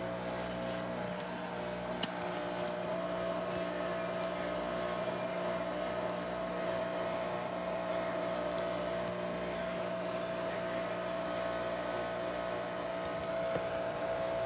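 Whirlpool washing machine running with a steady motor hum and a sustained whine, with one sharp click about two seconds in.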